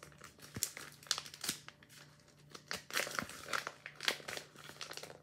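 Sheets of paper being handled and folded, crinkling and rustling in irregular clusters.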